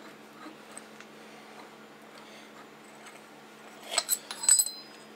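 A few sharp metallic clinks with a short ringing tail about four seconds in, as mild-steel clamp blanks are handled and seated in a milling-machine vise, over a faint steady hum.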